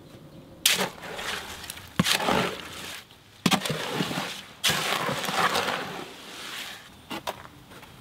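Wet concrete being mixed by hand in a plastic wheelbarrow: four scraping strokes of a tool blade dragging through the mix, each starting with a knock. Two short knocks follow near the end.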